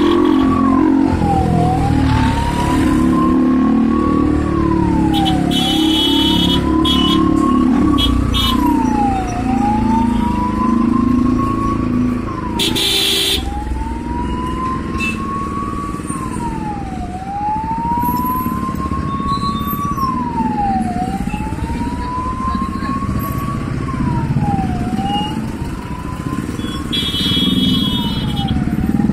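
Emergency-vehicle siren in a wail pattern: each cycle rises slowly in pitch for about three seconds, then drops quickly, repeating steadily over loud engine and road noise.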